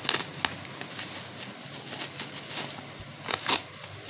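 Black bubble-wrap plastic mailer crinkling and crackling as it is cut with scissors and torn open by hand. Sharp crackles come at the start and in a cluster a little over three seconds in.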